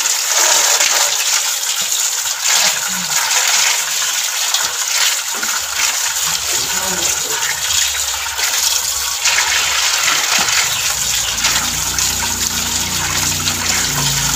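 Water pouring steadily from a pipe into an aluminium basin and splashing as hands rub and wash live swamp eels in it. A low hum comes in about three quarters of the way through.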